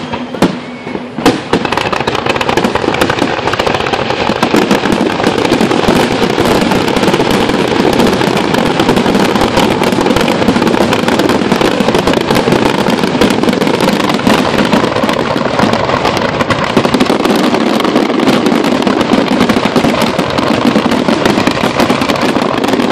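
Aerial firework shells in a finale barrage: a few separate bursts, then from about a second and a half in, a dense, unbroken run of bangs and crackling that keeps up steadily.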